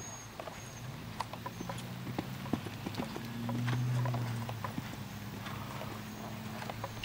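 Hoofbeats of a cantering horse on arena sand, an uneven run of soft strikes. Under them runs a low steady hum that swells about halfway through.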